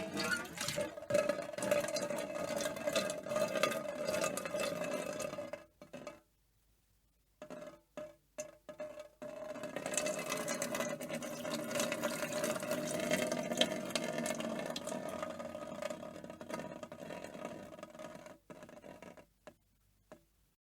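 A stream of water pouring into a metal can, a steady splashing with a ringing tone from the can. The stream stops about six seconds in, comes back as a few short spurts, then runs steadily again for about nine seconds before ending in a few last short spurts.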